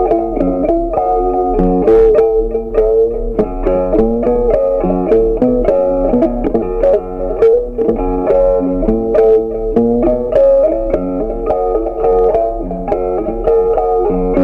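Background instrumental music: a plucked melody with quick note changes over steady lower notes.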